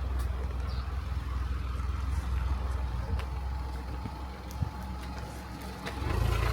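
Car driving, a steady low rumble of engine and road noise that gets louder about six seconds in.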